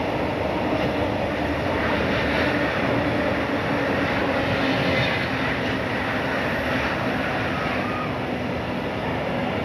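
Freight train of railway tank wagons rolling past close by: a steady rolling noise of wheels on rails.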